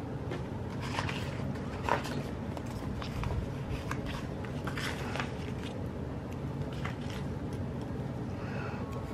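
Light rustling and scattered small clicks of sticker sheets and planner pages being handled, over a steady low hum.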